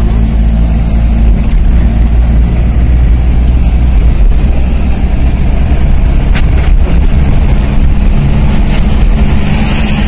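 Car driving at speed, heard from inside the cabin: a loud, steady low rumble of engine, tyres and strong wind against the car, with a faint steady engine hum.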